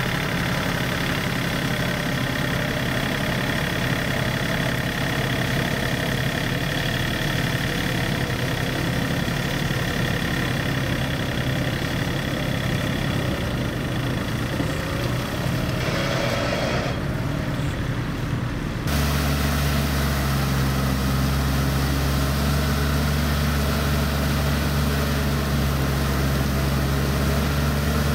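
Diesel engine of a Yanmar four-wheel tractor running steadily under load as its rear rotary tiller churns a flooded rice paddy. About two-thirds through, the sound shifts abruptly to a louder, lower steady hum.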